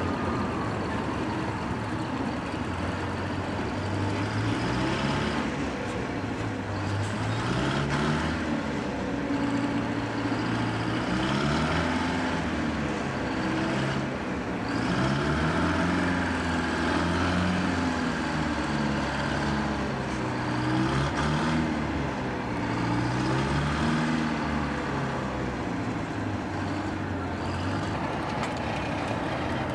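Pile-driving rig's engine running, its pitch swelling up and falling back in repeated cycles about every two seconds.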